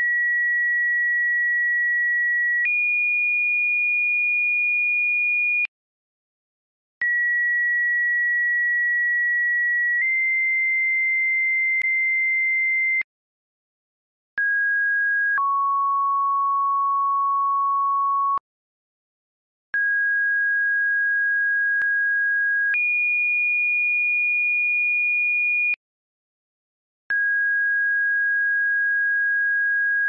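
Synthesized two-tone sequential siren activation codes for an attack signal: pure steady tones in pairs, each a tone of about three seconds that steps straight to a second pitch for about three more, with a short silence between pairs. Four pairs are heard, most stepping up in pitch; one opens with a tone of about a second and steps down; a fifth begins near the end.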